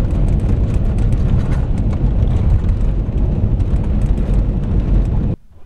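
Road noise heard inside the cab of a first-generation Toyota Sequoia driving on a gravel road: a steady low rumble of tyres and drivetrain, with small stones ticking against the body. It cuts off suddenly near the end.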